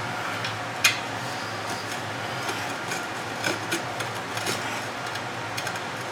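Small metal hardware clicking and clinking as someone rummages through a parts bin, with one sharper click about a second in, over a steady background noise.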